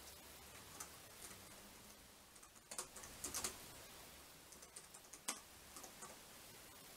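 Faint typing on a laptop keyboard: irregular key clicks, some in short clusters, the sharpest just after five seconds.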